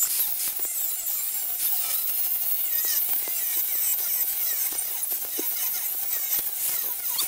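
Angle grinder grinding a steel railroad rail, its high whine wavering in pitch as it bears on the metal.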